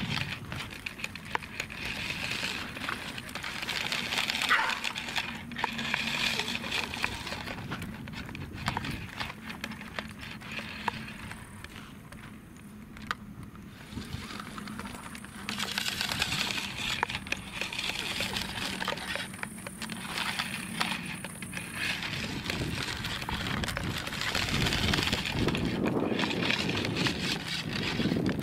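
Running footsteps of a person and a Welsh corgi crunching on gravelly dirt, coming in spells with a quieter lull about twelve seconds in.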